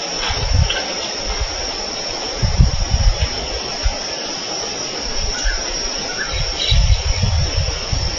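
Insects droning in one steady high-pitched chorus, with a few faint chirps and three short bouts of low rumbling.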